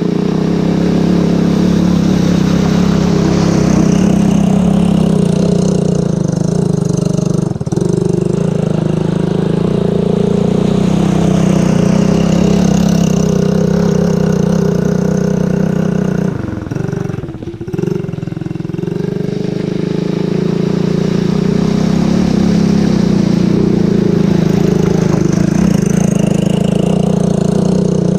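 ATV (four-wheeler) engine running steadily, with a brief dip and drop in pitch about two-thirds of the way through.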